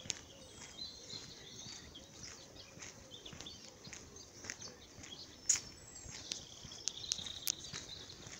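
Small songbirds chirping and twittering, with steady footsteps on an asphalt path about twice a second.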